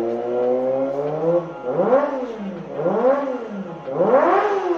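Kawasaki ZX-25R's 250 cc inline-four revving in neutral through an aftermarket racing exhaust. The note is held and climbing slowly at first, then come three quick throttle blips that each rise and fall in pitch, the last the loudest.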